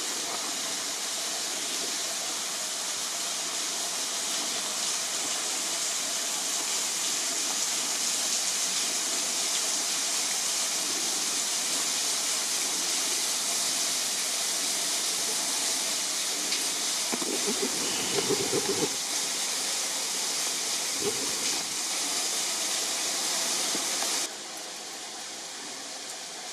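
Steady rushing hiss of a waterfall pouring onto rocks, with a few brief lower-pitched sounds about two-thirds of the way through. Near the end the sound cuts suddenly to a quieter, duller rush.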